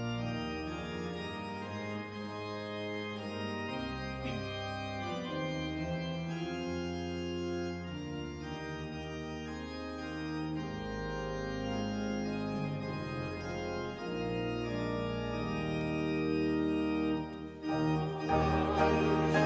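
Church organ playing a hymn introduction in slow, sustained chords over a deep pedal bass line. Near the end it swells and the congregation joins in singing.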